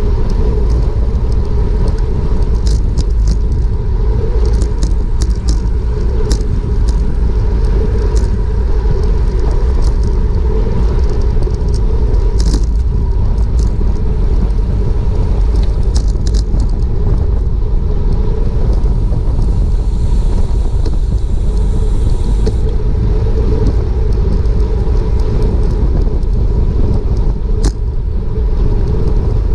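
Wind rushing over a bicycle-mounted action camera's microphone at racing speed, a loud, steady rumble, with scattered sharp clicks.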